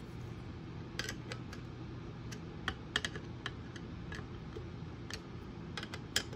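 Irregular light clicks and ticks of a screwdriver working small screws tight into a robot's metal chassis plate and bracket, metal tapping on metal, about a dozen clicks spread unevenly.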